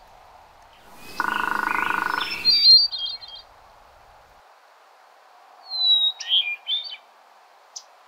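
Woodpecker drumming, one rapid roll about a second long, followed by two flute-like song phrases of a hermit thrush, the second opening on a clear whistle, over a steady background hiss.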